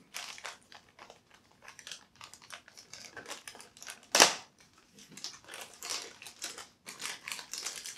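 Hands handling small parts and packaging at a bench: light crinkling and irregular small clicks, with one louder crackle about four seconds in.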